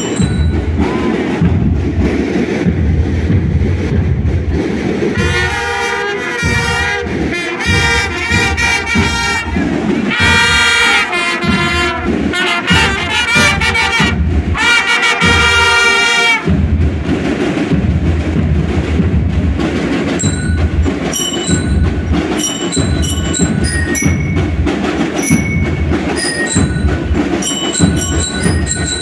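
School marching band playing: drums keep up a steady march beat throughout, and trumpets play a melody from about five seconds in until about sixteen seconds, after which the drums carry on with only scattered high notes above them.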